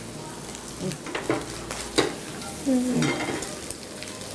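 Fried chicken pieces sizzling in a frying pan as they are stir-fried with a metal spatula. The spatula knocks and scrapes against the pan several times, loudest about two seconds in.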